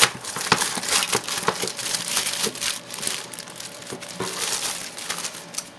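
Keyboard packaging being opened by hand: irregular crinkling and crackling, with small clicks throughout.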